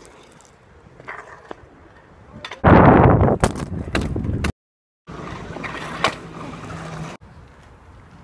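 Freestyle scooter wheels rolling on tarmac, with sharp clacks of the deck hitting the ground. The loudest part is a rolling rumble from about two and a half seconds in, broken by a brief silent gap a little after halfway.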